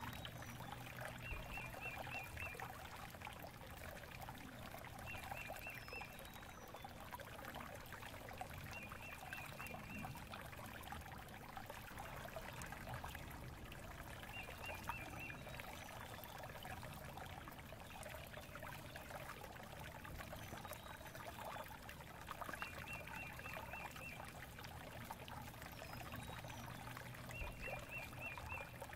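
Steady trickling noise like running water, with a short high trill that recurs every few seconds and a few faint high chirps.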